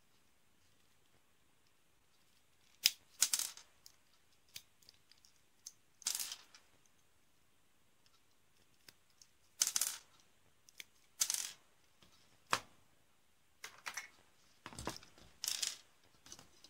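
Plastic-model nippers snipping small plastic parts off a kit sprue: about a dozen short, sharp snips and clicks, irregularly spaced, starting about three seconds in. A deeper knock near the end, as of a part or the cutters touching the table.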